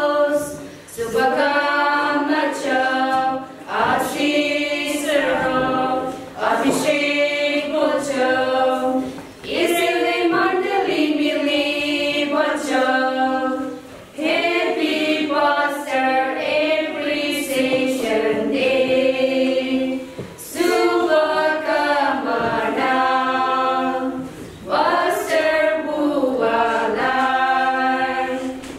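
Small women's choir singing a cappella, in long held phrases with short pauses between them.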